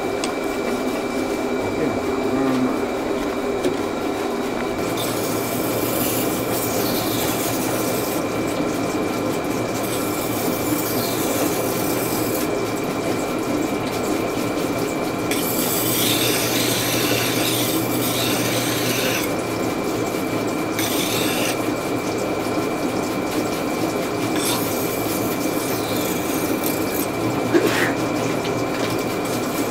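A large horizontal grinding wheel running with a steady motor hum while a Sakai Takayuki deba knife's broken blade is pressed against it to reshape it. There are about five grinding passes, each a few seconds of loud steel-on-stone hiss.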